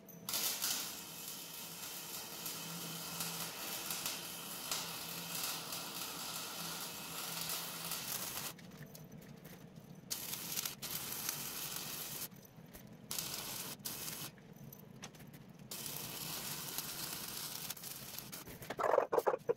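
Arc welding on a steel trailer frame: the arc crackles and sizzles in one long run of about eight seconds, then stops and restarts in three shorter runs as the welds are laid. A brief louder sound comes near the end.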